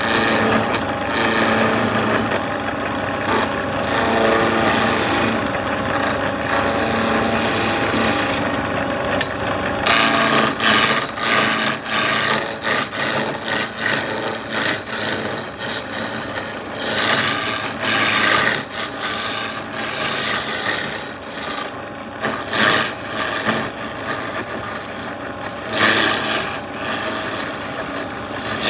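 Wood being worked with an abrasive or cutting tool on a carved wooden sofa leg, a continuous rasping and rubbing. About ten seconds in it turns into rapid, uneven strokes, loudest in a few stretches.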